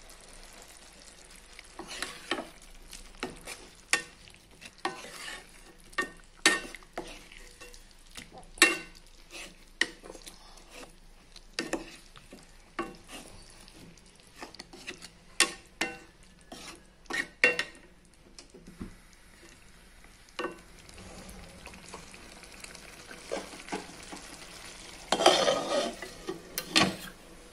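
A white plastic spatula stirs a fish, green pea and tomato curry in a pan, knocking and scraping against the pan every second or so, over the sizzle of the curry cooking. The knocks thin out about two-thirds of the way through, then bunch together again near the end.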